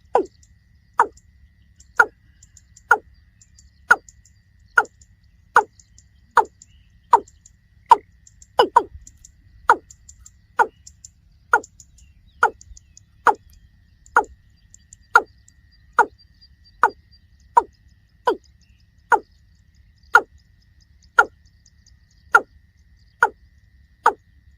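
Watercock calling: a steady series of short notes, about one a second.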